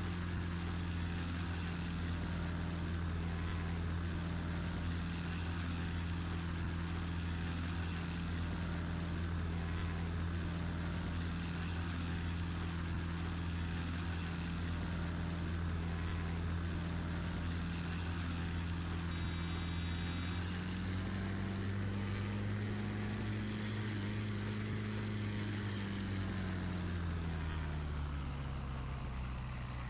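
Cessna 402's twin piston engines and propellers droning steadily through a landing. The pitch rises slightly about two-thirds through, then falls away over the last few seconds as power comes back.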